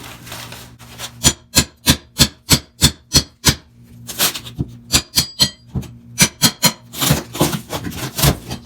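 A hand tool working on wood in quick back-and-forth strokes, about three a second, in several runs, with rougher continuous scraping near the end.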